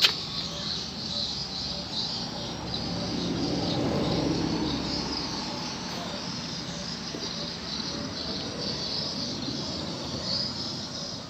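Outdoor background of insects chirring steadily at a high pitch, with a low rumble that swells and fades a few seconds in. There is a sharp click right at the start.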